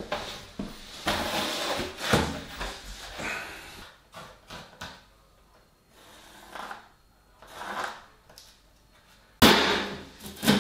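Knocks and scrapes of insulation boards being handled and laid on a floor, a few in the first seconds, then quieter. Music comes in near the end.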